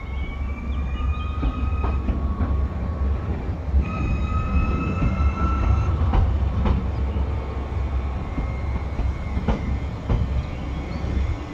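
Régiolis regional electric train running past along the station platform. A high whine rises a little twice in the first half, and sharp clicks of the wheels over rail joints come later on.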